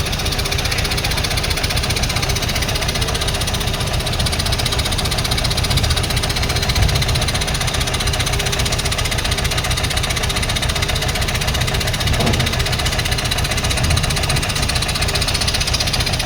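A large engine running steadily at idle close by, with a rough, even knock.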